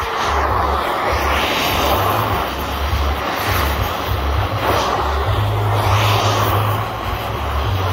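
Oxy-fuel cutting torch flame roaring and hissing steadily as its tip is held to and lifted from a steel plate, with a low rumble underneath.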